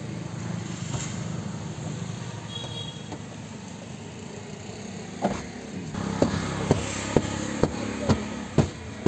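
Car interior being cleaned by hand: a run of about eight sharp knocks, roughly two a second, starting about halfway through. They sound over a steady low background rumble.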